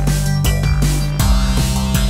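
Theme music with a deep, steady bass line and a drum hit about every three quarters of a second.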